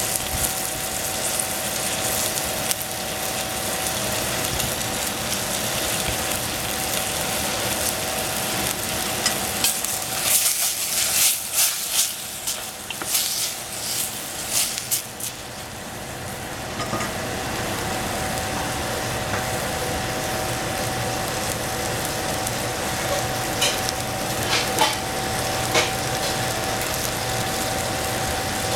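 Egg and oyster mushrooms sizzling as they fry in a stainless steel saucepan. In the middle a wooden spatula stirs and knocks against the pan in a run of sharp clicks, with a few more near the end, over a steady faint hum.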